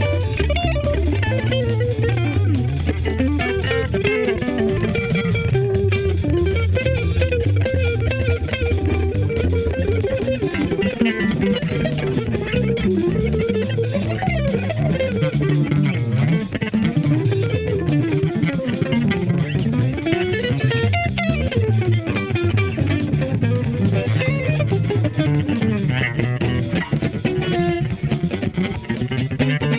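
Funk groove jam: an electric guitar playing melodic lines over a bass guitar line and a drum track with a steady, busy beat.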